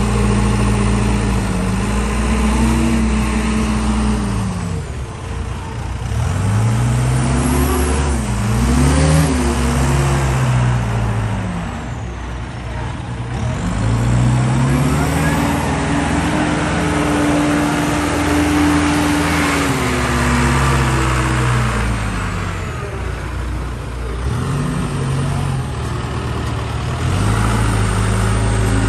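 Diesel engine of a Gehl telehandler revving up and easing back in about four long swells as it pushes a dead John Deere Model A tractor along on its forks.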